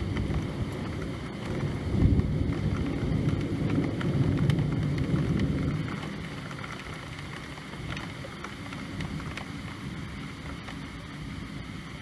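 Rain falling, with scattered drop ticks over a low rumble that swells in the first half and eases off after about six seconds.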